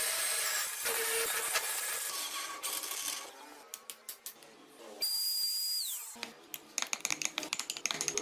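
A cordless drill bores into a spinning wooden wheel blank for about three seconds, with a dense scraping whir. About five seconds in, a high-pitched small rotary tool runs for about a second and winds down. Near the end a quick run of scratching clicks comes as the wooden wheel is carved with a pointed tool.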